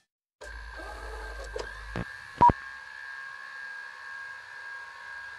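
Steady electronic hum with two constant high tones, a few faint clicks, and one short, sharp beep about two and a half seconds in.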